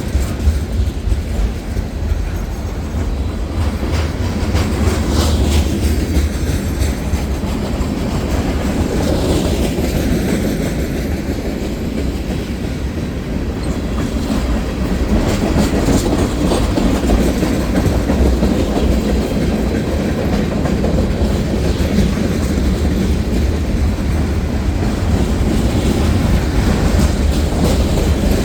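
Freight train cars rolling past at close range: a steady, loud low rumble with wheels clicking over rail joints.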